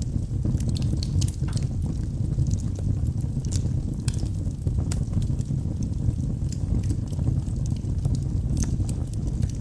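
Wood fire burning in a fireplace: a steady low rumble with frequent, irregular sharp crackles and pops from the burning logs.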